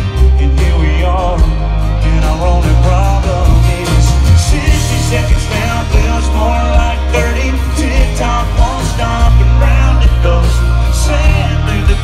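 Live country band music played loud through a concert PA and heard from the audience, with heavy bass and drums under guitars and keyboard.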